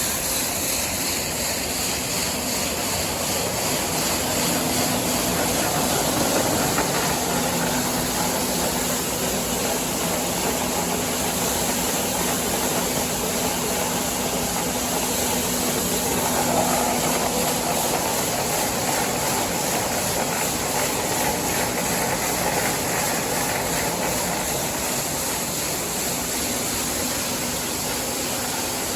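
Gas grain dryer running, with the grain augers feeding corn through it: a steady, even mechanical noise with a faint low hum.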